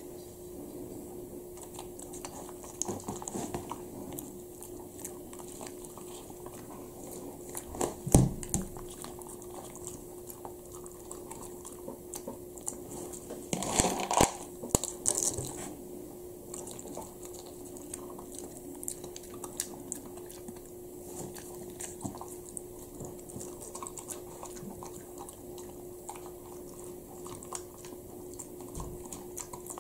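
Shiba Inu crunching dry kibble picked off a plastic-covered table, with many small clicks of teeth and kibble over a faint steady hum. Louder rustling clusters come about a quarter of the way in and again near the middle.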